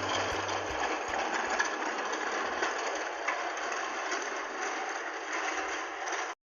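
Toy train's small motor and gears whirring steadily, cutting off suddenly near the end.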